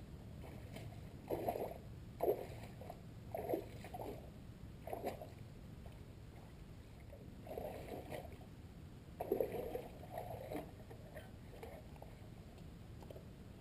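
Boots squelching and sucking in soft, wet tidal mud and shallow water, a series of irregular wet steps about a second apart.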